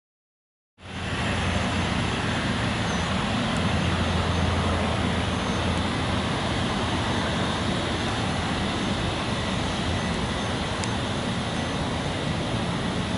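Steady jet engine noise from a taxiing Embraer 190 and its CF34 turbofans, an even hiss and rumble with a low hum, starting after a brief silence.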